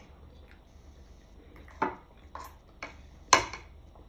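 Metal spoon clinking and scraping against a ceramic rice bowl: four sharp clinks in the second half, the last the loudest.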